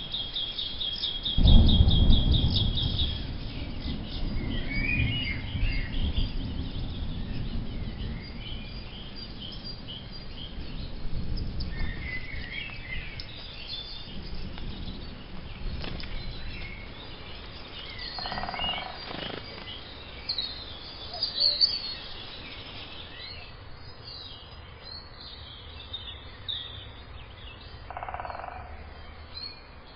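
Birds chirping and calling in an outdoor ambience, opening with a rapid high trill. A low rumble comes in about a second and a half in, is the loudest thing heard, and fades over the next ten seconds. Short, lower calls stand out twice in the second half.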